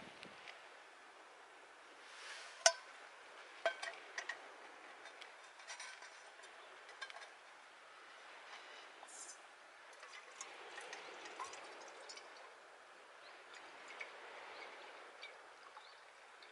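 Metal camp cookware clinking a few times, the sharpest ringing clink about two and a half seconds in, with small scattered crackles from the wood fire burning in the stove.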